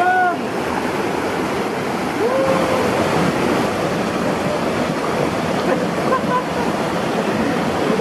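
Steady rush of a rocky mountain stream pouring between boulders below a waterfall. A man gives a brief shout at the very start and another short vocal sound about two seconds in.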